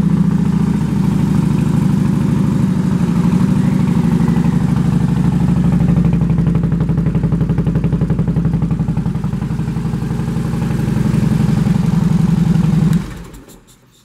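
A 2008 Harley-Davidson Road King's Twin Cam 96 V-twin idling steadily through aftermarket Vance & Hines exhaust pipes, with the loping pulse typical of a Harley. It is switched off about a second before the end and dies away.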